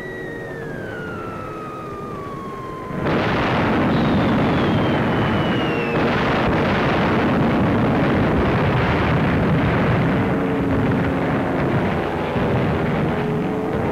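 Falling bombs whistling down in a descending pitch, the first ending in a loud explosion about three seconds in and a second one about six seconds in, followed by continuous rumbling blasts. Faint music starts to come in near the end.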